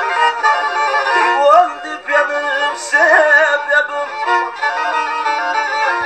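Black Sea folk music: a kemençe, the small bowed fiddle of the region, plays an instrumental passage of the melody with sliding notes.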